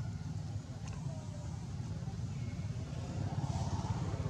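Steady low rumble with a few faint, short high chirps over it, and a soft hiss swelling near the end.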